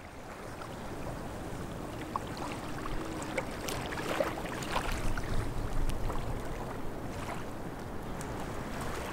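Water ambience: lapping and splashing water with many small scattered splashes over a steady low rumble.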